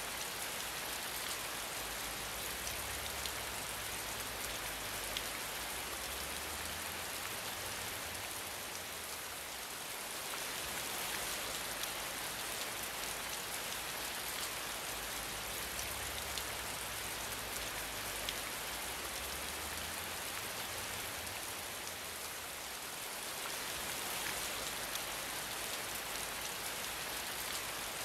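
Steady rain falling, a dense hiss of many drops with scattered sharper drop hits. It eases off slightly twice, about a third of the way in and again near the three-quarter mark.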